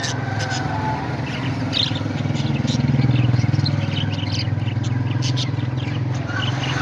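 Birds chirping in short scattered calls over a steady low hum that swells a little around the middle.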